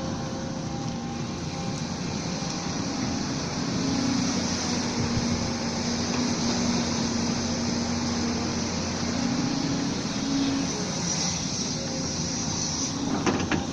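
Volvo excavator's diesel engine running steadily, with a hum that grows louder from about four seconds in and eases off after about ten seconds. A few sharp knocks come near the end.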